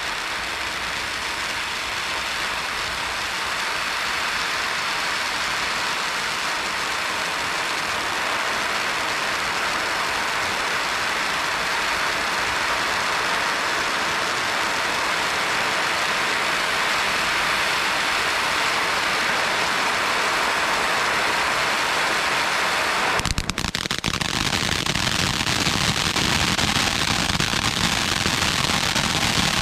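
Ground fountain firework spraying sparks with a steady hiss that slowly grows louder. About three-quarters of the way through it switches abruptly to a dense crackling.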